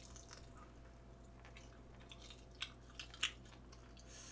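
Faint mouth sounds of eating jjamppong noodles and fried pork: soft chewing with scattered small clicks and smacks. Two sharper clicks stand out, about two and a half and three seconds in.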